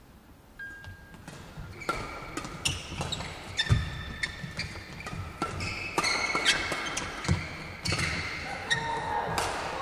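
Badminton rally: rackets striking the shuttlecock in quick back-and-forth hits, starting about two seconds in, with shoes squeaking sharply on the court floor between strokes.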